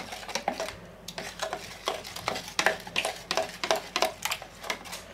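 A utensil stirring cream sauce in a plastic measuring jug, clicking and scraping against the jug's sides about three times a second, unevenly.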